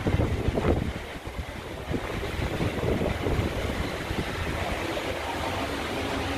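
Steady low rumbling noise with handling bumps on a phone microphone as the camera is moved around.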